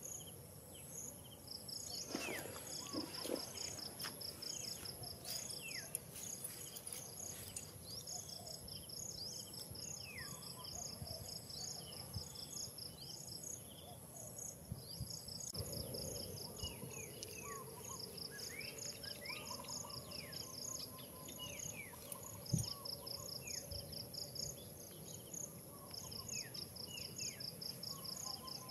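Forest insects: one steady high whine under repeated trains of rapid, evenly pulsed chirps. Short falling calls come and go throughout, and a single sharp knock sounds about two-thirds of the way through.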